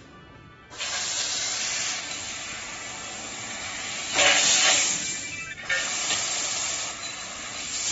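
ACME three-chuck fiber laser tube cutting machine cutting a square metal tube: the assist-gas jet at the cutting head hisses in bursts as the cuts are made. The hiss starts under a second in after a short quiet gap, and is loudest about four seconds in.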